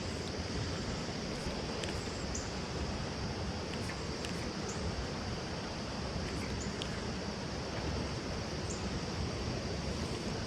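Steady outdoor ambience: a constant high insect drone over a low rushing noise, with a few faint short high chirps scattered through.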